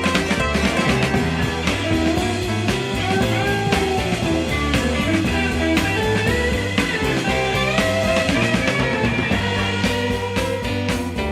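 Blues-rock band playing an instrumental break: a lead electric guitar with bending notes over steady bass and drums.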